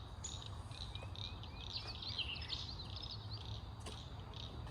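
Outdoor animal chorus: a high, pulsing call repeating a few times a second, with a brief run of bird chirps about two seconds in, over a steady low rumble.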